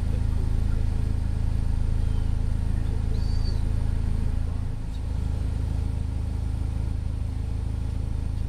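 Steady low rumble of a car engine running, with a brief dip about five seconds in.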